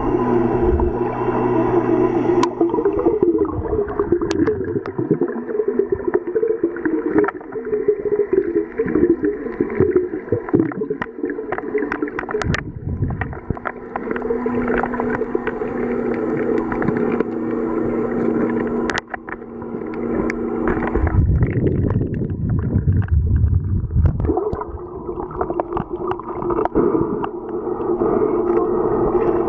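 Muffled underwater sound: water gurgling and sloshing around the camera, over a steady drone of several tones. A louder low rumble of water movement comes a little after twenty seconds in, and there are a few sharp clicks.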